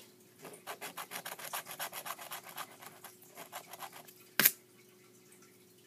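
A coin scratching the coating off a scratch-off lottery ticket in quick back-and-forth strokes for about three and a half seconds. About four seconds in there is one short, louder noise.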